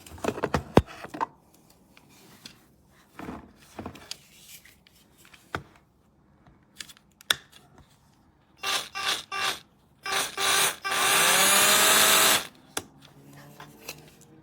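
DEKOPRO 8V cordless drill run with no load: a few short pulses of the trigger, then a run of about two and a half seconds as the motor spins up and winds down, with handling clicks before it.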